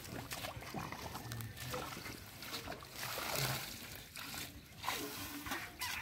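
Irregular splashing and sloshing of shallow muddy water, with wet grass and water plants rustling, as someone steps and reaches through a flooded marsh edge.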